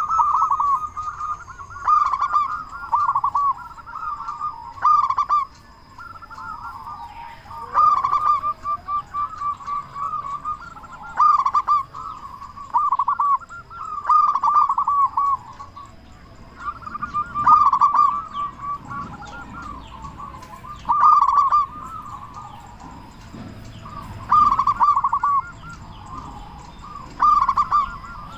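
Zebra dove (perkutut) cooing loudly in full song: phrase after phrase of rapid rolling coos, one every one to two seconds with short pauses between.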